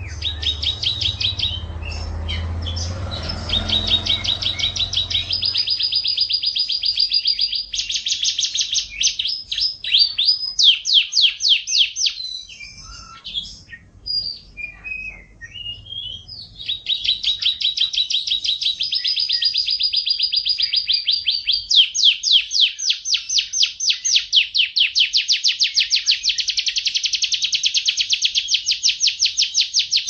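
F1 domestic canary singing a long song of fast trills, each a rapid run of repeated high notes, changing from one trill to the next every few seconds. About twelve seconds in, the trills break off for a few seconds of scattered chirps and short whistles, then resume. A low rumble runs under the first few seconds.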